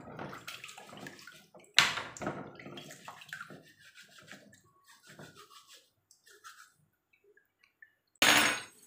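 Water splashing and sloshing in a plastic basin as mussels are scrubbed clean with a scouring pad, water dripping back in as the shells are lifted out. A loud splash about two seconds in, and another loud burst near the end.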